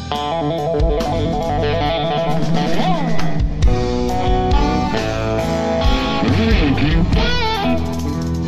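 Live electric guitar playing a lead line over bass guitar and drums, its notes bent and wavering in pitch, most clearly about three seconds in and again near the end.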